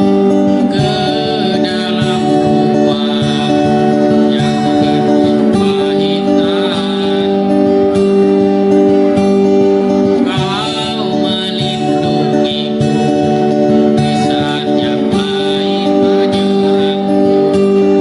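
Live performance of an Indonesian pop ballad: guitar playing sustained chords, with a singing voice coming in and out.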